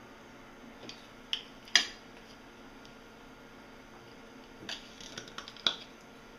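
Small hard objects being handled on a tabletop: two sharp clicks near two seconds in, the second the loudest, then a short run of clicks and knocks about five seconds in, as a wooden clothespin is taken off a key-remote circuit board and a plastic tool is picked up.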